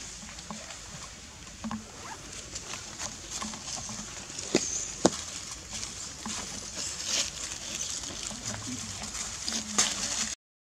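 Dry fallen leaves rustling and crackling as long-tailed macaques move over the leaf litter, with scattered sharp clicks, the two loudest about half a second apart near the middle.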